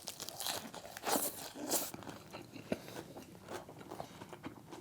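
A person chewing a crisp lettuce wrap of roasted pork belly with mustard and garlic: irregular crunching bites.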